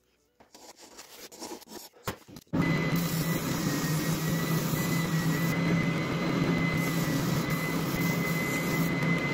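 Benchtop spindle sander running while a small rosewood guitar-bridge blank is pressed against its sanding drum: a steady motor hum with a constant high whine and the hiss of abrasive on wood. It starts abruptly about two and a half seconds in, after a few faint scratches and clicks of a pointed hand tool picking at the wood, and cuts off at the very end.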